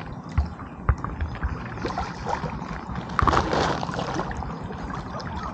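Water sloshing and splashing, with a few knocks of handling and a louder rush about three seconds in.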